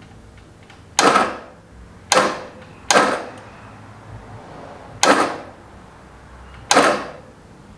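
1973 MG Midget's starter motor bumped five times in short bursts, each turning the engine over for a fraction of a second with the spark plugs out. He is inching the engine toward top dead center on number one cylinder.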